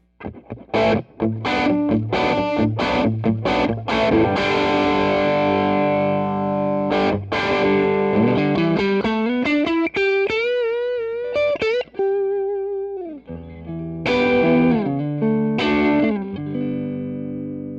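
Electric guitar played through a Donner Morpher distortion pedal on its natural setting, giving a gritty, overdriven tone. It starts with struck chords and riffs, has a bent note with wide vibrato in the middle, and ends on a chord left to ring.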